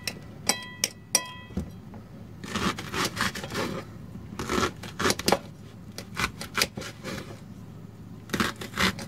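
Small kitchen knife chopping an onion on a plate: irregular taps of the blade on the plate and quick scraping cuts through the onion, coming in short runs. A brief ringing tone sounds about half a second in.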